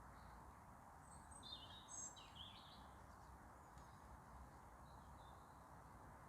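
Faint outdoor quiet with a short run of high bird chirps about one to three seconds in, over a steady low background hiss.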